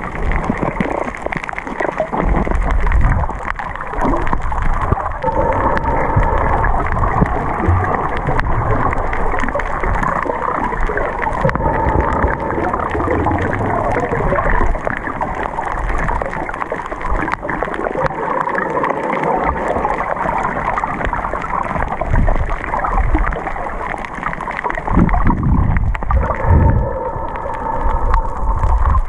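Muffled underwater sound picked up by a camera held under the surface: a steady gurgling and swishing of water as the snorkeller swims, with a few low thumps of movement.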